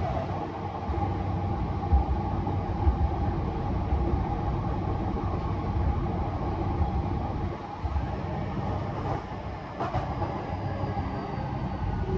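Running noise inside a JR East E233-3000 series commuter train car under way: a steady rumble of wheels on rail with a constant hum, and a couple of heavier knocks about two and three seconds in.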